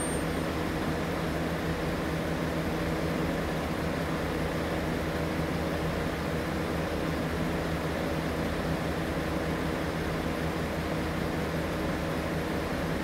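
Steady night chorus of insects with a constant low hum beneath it, unchanging throughout.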